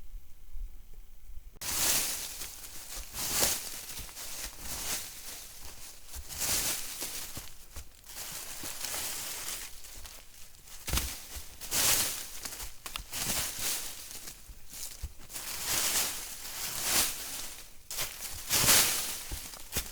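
Footsteps crunching and rustling through dry forest leaf litter, an irregular step every half second to a second, starting a moment in.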